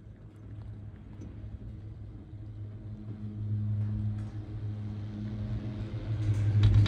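Poma high-speed quad chairlift running, heard from the chair: a steady low hum from the haul rope rolling over the line sheaves grows louder as a tower approaches. A louder burst of noise near the end is the chair's grip crossing the tower's sheave train.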